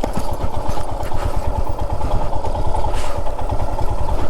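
Royal Enfield Himalayan motorcycle's single-cylinder engine running steadily with a rapid low pulsing.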